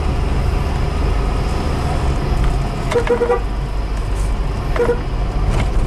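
Mitsubishi Kuda's 1600 cc petrol engine, fed by a Toyota Kijang 7K carburettor, running steadily under way at about 2000 to 3000 rpm, heard from inside the cabin with road noise.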